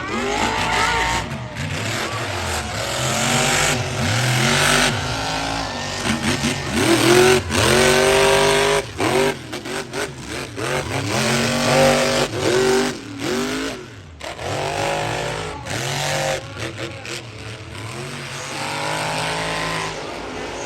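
Monster truck engines revving hard through a race, their pitch climbing and dropping again and again.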